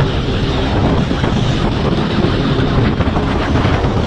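Motorcycle engines running at riding speed, with wind rushing over the microphone.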